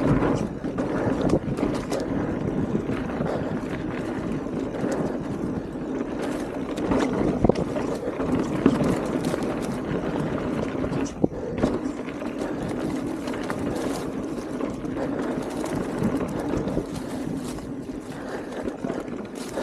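Mountain bike rolling fast down a dirt singletrack: a steady rumble of tyres over the trail, with scattered clicks and knocks from the bike rattling over rough ground.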